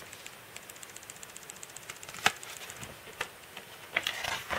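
Hand handling the glossy pages of a photo book: a sharp tap about two seconds in, a lighter one a second later, and a short rustle of paper near the end as a page is taken to be turned.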